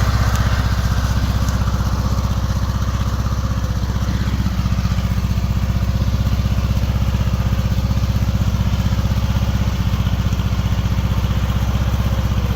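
Riding lawn mower engine running steadily.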